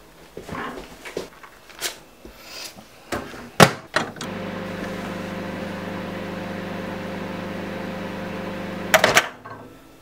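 Countertop microwave oven with mechanical dials: a run of clicks and knocks as it is loaded, shut and set, then the oven runs with a steady hum for about five seconds. The hum stops about nine seconds in with a burst of loud sharp clicks.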